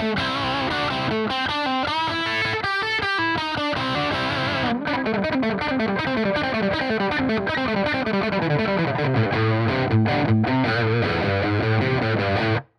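Distorted electric guitar played through a miked Celestion G12M-67 Greenback speaker, with a short break about five seconds in before the same kind of rock playing is heard through a Celestion G12EVH speaker. The playing cuts off suddenly just before the end.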